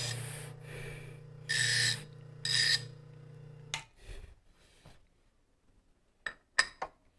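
Bench grinder motor running as a part is held to the wheel in two short grinding bursts, then switched off about four seconds in. A few sharp clicks near the end.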